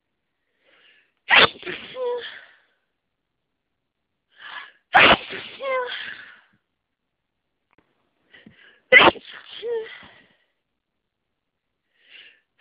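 A person sneezing repeatedly in a hay fever fit: three loud sneezes about four seconds apart, each with a short catch of breath before it and a voiced, falling tail after it. A fourth sneeze begins right at the end.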